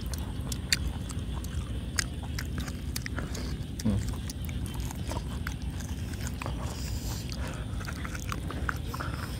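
Close-up chewing and biting of boiled pig head and cheek meat, with irregular sharp smacks and clicks from the mouth, and a brief vocal sound about four seconds in.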